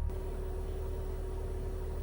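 A steady low hum with a faint held tone above it, changing abruptly in character right at the start.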